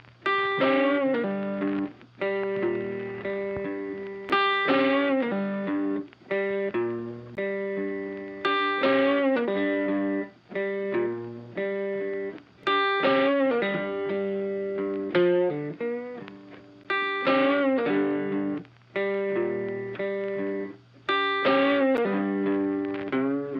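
Intro music: a plucked guitar riff played in short repeated phrases that stop and restart about every two seconds.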